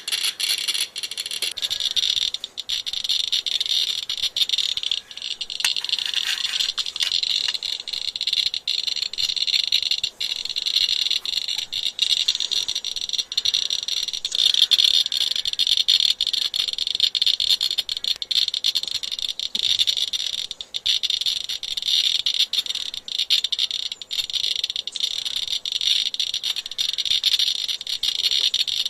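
Geiger counter clicking in a dense, steady crackle at a very high count rate, the sign of a reading around 80 times normal background radiation.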